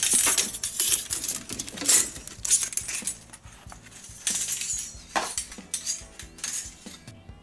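Long steel clock mainspring being handled and uncoiled by gloved hands: the metal strip clinks, rattles and scrapes against itself in irregular bursts, growing quieter near the end.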